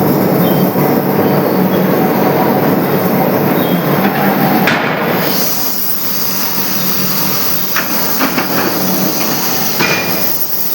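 Forging press and shop machinery running with a loud, dense clatter. Just under halfway through, a hiss joins in, and a few short metallic knocks follow near the end.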